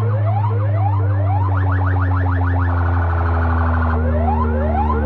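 DJ sound system playing a competition DJ track loud: repeated rising siren-like sweeps over a steady deep bass tone. The sweeps come about twice a second and run faster in the middle.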